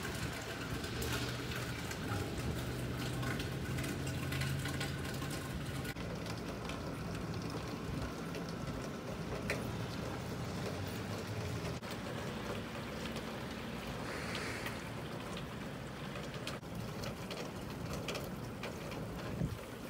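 Steady rain falling, with scattered drops ticking on nearby surfaces. A low steady hum runs underneath for the first several seconds.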